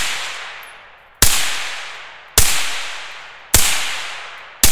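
7.62x39 AR rifle firing through a YHM R9 9mm suppressor, four shots a little over a second apart. Each is a sharp, pretty loud crack with a long echoing tail. The small 9mm can does not make this cartridge hearing safe.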